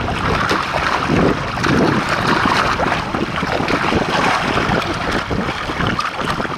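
Sea water splashing and rushing along the hull of a Hobie Adventure Island sailing kayak as its bow cuts through choppy waves under sail, with wind buffeting the microphone in uneven gusts.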